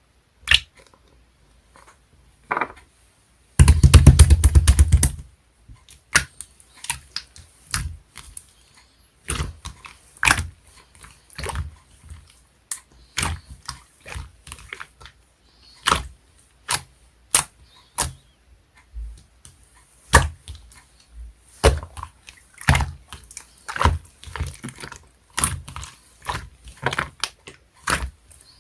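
Clear, jelly-textured slime being squeezed and poked, giving irregular sticky clicks and pops. About four seconds in there is a louder run of rapid squelching crackles.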